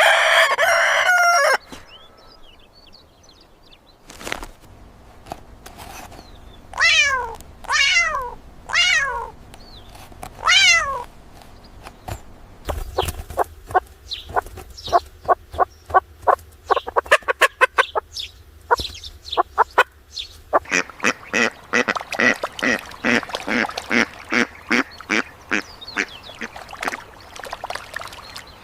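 Domestic chickens: a rooster crows loudly in the first second or so, four falling calls follow, and then hens cluck in a long run of short, rapid calls.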